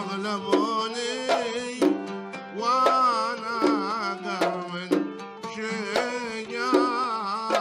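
Omani folk ensemble playing an instrumental passage: a violin melody with wide vibrato and oud over a regular beat of double-headed hand drums.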